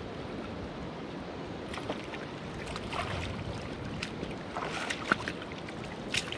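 Steady rush of a river running over rocks, with short splashes from a hooked jack chinook salmon thrashing in the shallows as it is dragged to shore; the sharpest splash comes about five seconds in.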